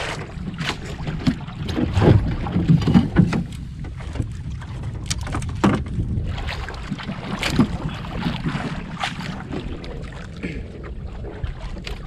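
Steady low rumble of wind and water around a small outrigger boat at sea, with scattered knocks and clicks as fishing line, hooks and gear are handled aboard, the loudest knocks about two to three seconds in.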